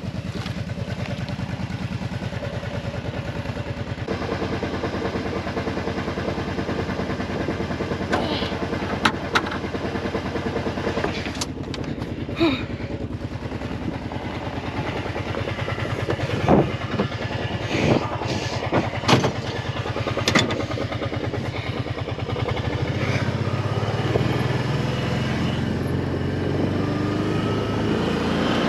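Side-by-side UTV engine running steadily while driving, with a series of sharp knocks and clatters through the middle. Engine speed rises over the last few seconds.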